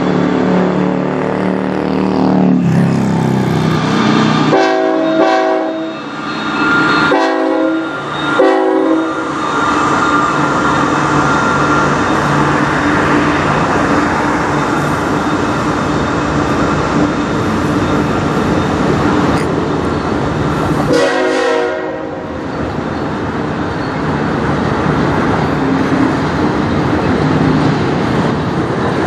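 Two CN diesel locomotives pass close by, their engines running. The horn sounds in short blasts about five seconds in, twice around eight seconds and again around twenty-one seconds. In between is the steady rolling noise of the autorack cars going by on the rails.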